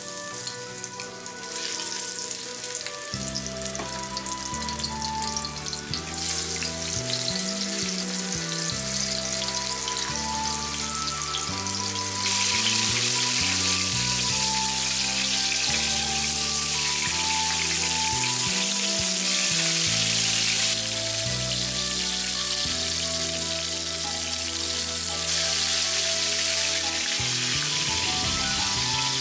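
Floured pork neck steaks frying in hot oil in a frying pan, a steady sizzle that starts just after the first steak goes in and grows louder in steps, about 6 and 12 seconds in.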